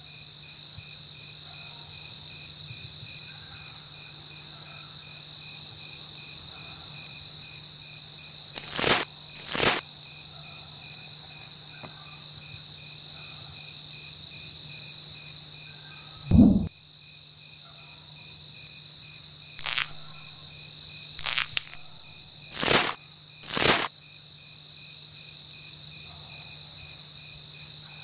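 Crickets chirring steadily in a night-time chorus, with a fast, even pulse. A few sharp knocks come around nine seconds in and again between twenty and twenty-four seconds, and a single louder low thump falls just past the middle.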